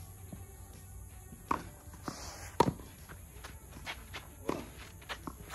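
Tennis rally: sharp pops of a tennis ball struck by rackets and bouncing on the court, the loudest hit about two and a half seconds in, among lighter footsteps of the players moving on the court.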